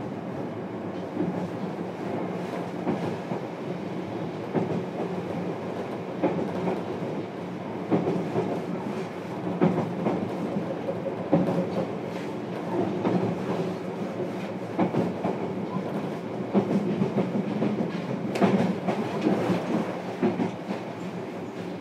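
JR Kyushu 303 series electric train running at speed, heard inside the motor car MoHa 303-103. Wheels click over rail joints throughout, above a steady low running hum.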